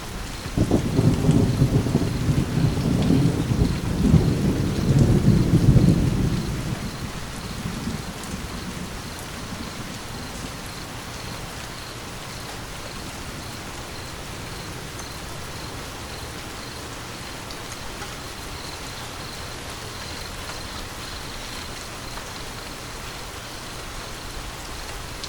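Steady rain with a long rumble of thunder that starts about half a second in, is loudest around five to six seconds, and fades out by about eight seconds, leaving the rain alone.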